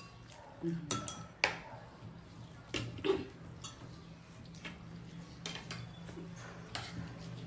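Cutlery and dishes clinking against a plate during a meal: a handful of sharp clinks at irregular intervals, over a low steady hum.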